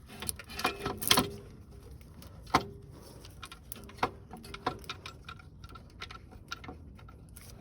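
Irregular metallic clicks and clinks of tools and parts being handled during an alternator installation, a few with a short ring.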